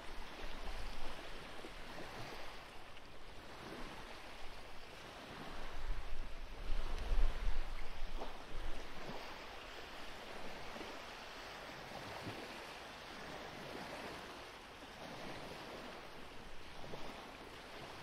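Steady outdoor rushing noise with strong wind gusts buffeting the microphone, the heaviest gust about six to eight seconds in.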